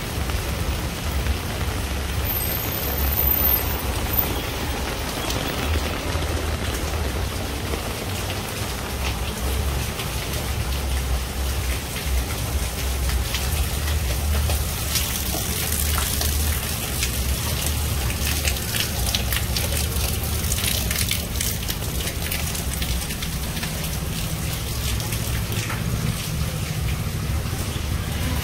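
Steady rain falling, with many close raindrops ticking sharply, thickest in the middle stretch, over a constant low rumble.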